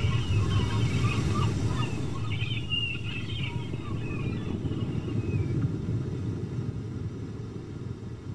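Birds chirping and warbling over a steady low rumble. The calls die away about halfway through, and the rumble slowly fades toward the end.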